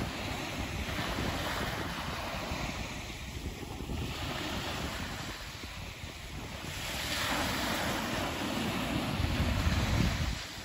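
Small surf breaking and washing up a sandy beach, with wind on the microphone. The wash swells loudest from about seven seconds in, then drops away sharply near the end.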